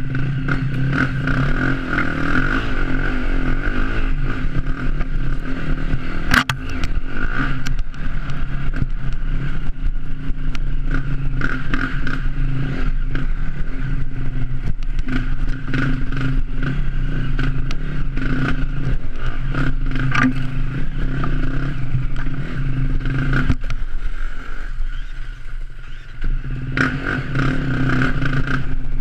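Enduro dirt bike engine running under throttle while riding a rough trail, with frequent knocks and rattles from the bike going over bumps. The engine eases off briefly near the end, then picks up again.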